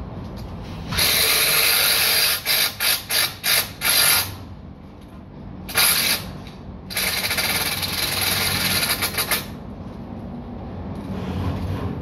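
Cordless power drill run in bursts on window framing overhead: one run of about a second, a string of five or six short trigger pulses, a brief burst, then a run of about two and a half seconds.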